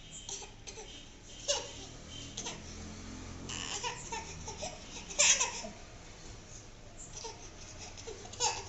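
A small child's short, high laughs and babbling sounds, coming in scattered bursts, with a sharper noisy burst about five seconds in.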